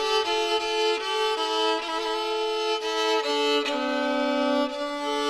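Background music: a violin playing a melody, note after note, with one longer held note about four seconds in.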